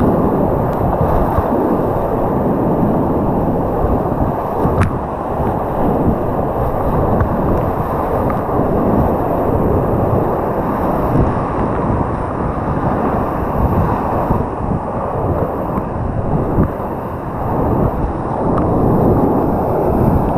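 Loud, continuous rushing and churning of a flooded whitewater river, heard from a kayak running the rapids; the sound is dull and muffled, with little high hiss. A single sharp click comes about five seconds in.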